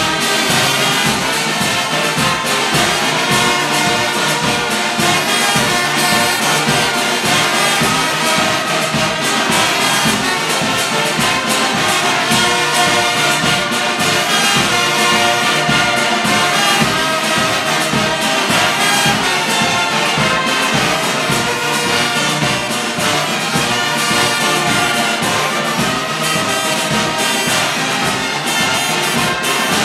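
Brass band of trumpets, trombones and sousaphones playing a march, with a steady low beat running under it.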